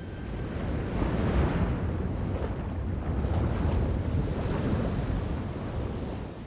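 Ocean surf with wind: a rushing wash of water that swells about a second in and fades out near the end.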